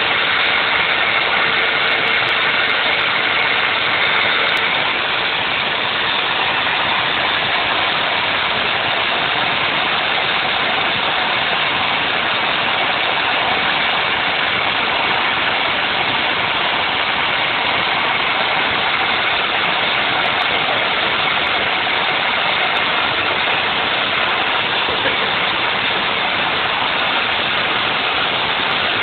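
Wood router mounted on a homemade CNC router, its motor running steadily at high speed as the bit mills a sheet of rigid foam board.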